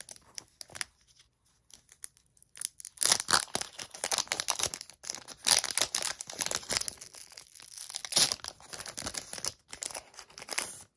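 Foil Pokémon booster-pack wrapper being torn open and crinkled: several runs of ripping and crackling separated by short pauses.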